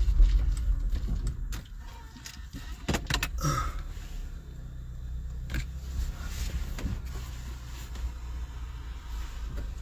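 Car cabin rumble from a car's engine and road noise, loud for the first second and a half and then dropping to a quieter steady hum, with a few short clicks about three seconds in.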